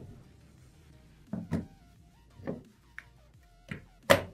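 Airsoft Glock replica pistols being set down one after another on wooden planks: a series of hard knocks, the loudest near the end, over faint background music.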